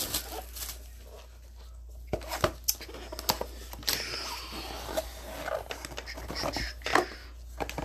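Cardboard trading-card box being handled on a tabletop, then opened and its foil packs pulled out: scattered sharp knocks and taps, with a rustle of cardboard and pack wrappers about four seconds in.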